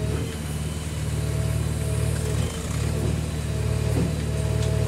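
JCB backhoe loader's diesel engine running steadily under working load, heard from inside the operator's cab while the backhoe arm is swung by the hydraulics.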